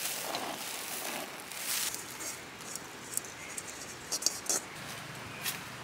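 Bread flour and grated coconut poured into a stainless steel bowl: a soft pattering hiss, then a few light clicks and scratches between about three and five seconds in.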